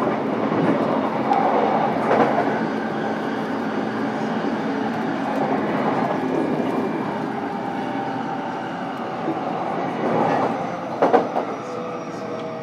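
Running noise inside a JR East E233-7000 series electric train's motor car: steady rumble of the wheels on the rails, with a few clicks over rail joints. Near the end, the whine of its Mitsubishi IGBT VVVF inverter slides slightly lower.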